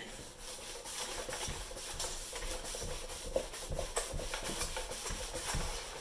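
Damp melamine foam (magic eraser) scrubbing the plastic of a keyboard case between the key switches: steady rubbing with many small scuffs.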